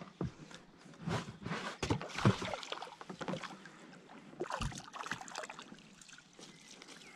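A hooked perch splashing at the water's surface beside the boat, then a landing net scooped through the water to take it, with irregular splashes and knocks.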